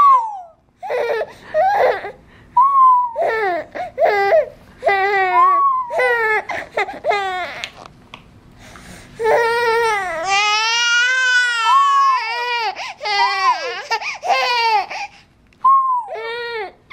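A toddler alternating between crying and laughing: short high-pitched sobbing cries, a long drawn-out wail about ten seconds in, and more short cries and whimpers after it.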